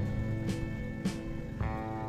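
Background music: guitar with a steady beat, about two beats a second.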